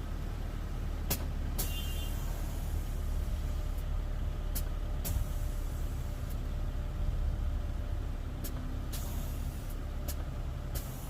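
BMW E36 air suspension being aired out: the valves click several times, with short hisses of air let out of the bags, over a steady low engine idle.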